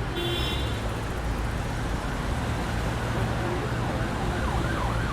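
Steady city traffic noise with a low engine rumble; near the end a siren starts yelping, its pitch rising and falling rapidly.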